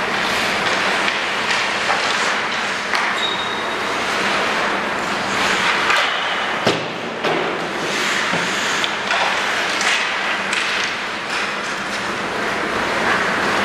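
Ice hockey skates scraping and carving on rink ice, with scattered knocks of sticks and pucks. A sharp crack comes about halfway through, a shot or the puck striking the goalie.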